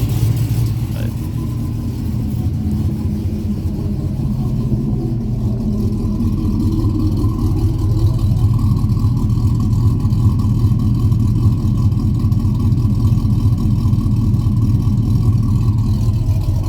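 2005 Chevy 1500's 4.8-litre V8, fitted with a stage 2 low-lift truck cam and not yet tuned, idling steadily with a large exhaust leak audible.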